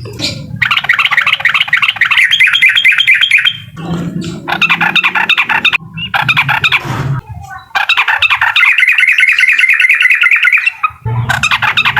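Sooty-headed bulbul (trucukan) singing its 'uklik' song: loud, rapid chattering phrases, several in a row, each one to three seconds long with brief pauses between.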